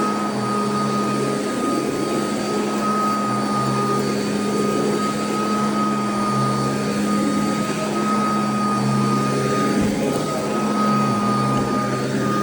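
Royal vacuum cleaner running steadily over carpet: a loud rush of airflow with a steady high motor whine and a low hum underneath.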